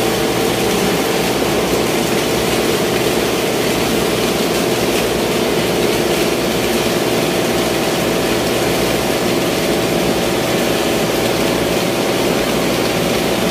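Ice-making plant machinery running, a loud steady drone: a constant hum of several held tones with a hiss over it.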